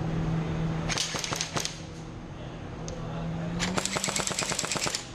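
Airsoft electric rifle firing: a short burst of a few shots about a second in, then a longer rapid burst of about a dozen shots a second near the end.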